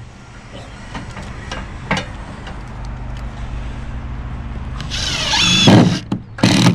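A power tool working on wooden formwork, building up to a loud burst about five seconds in, over a steady low hum, with a single knock about two seconds in.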